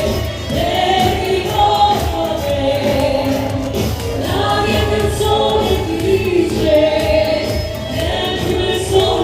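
Loud music with several voices singing together in Italian over a steady beat.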